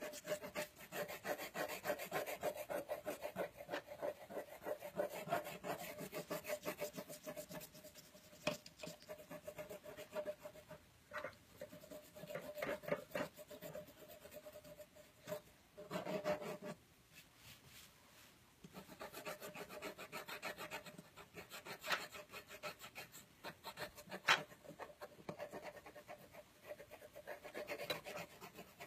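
Watercolour pencil scratching across paper in rapid back-and-forth shading strokes, with a short pause a little past halfway.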